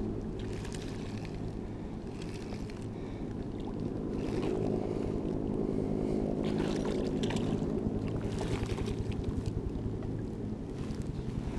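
A motor running steadily, a low droning hum, with brief hissing swishes every few seconds.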